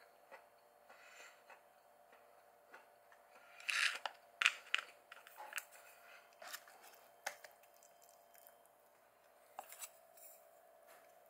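Eating sounds: pan-fried potstickers being crunched and chewed, with light clicks of disposable wooden chopsticks, loudest about four seconds in. A faint steady hum runs underneath.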